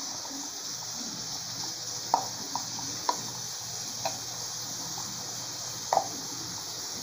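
Sausage and vegetable mixture sizzling steadily in an aluminium pot on a gas stove while tomato paste sachets are squeezed over it. About half a dozen short sharp clicks and taps are scattered through, the loudest about two seconds in and near the end.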